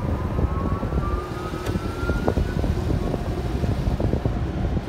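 Car-wash dryer blowers rushing steadily, heard from inside the car, with a thin whine slowly rising in pitch over the first three seconds and a few light clicks.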